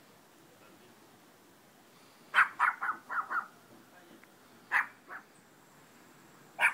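An animal calling in short, sharp calls: a quick run of about six calls about two and a half seconds in, two more a little later and one near the end.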